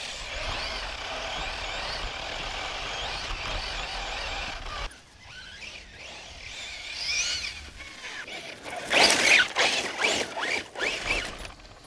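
Battery-powered Losi RC truggy racing across a lawn: its electric motor whines, rising and falling in pitch with the throttle, over the hiss of its tyres on grass. The sound breaks off abruptly about five seconds in, comes back with a rising whine, and is loudest from about nine to eleven seconds in, as the truck rushes close by.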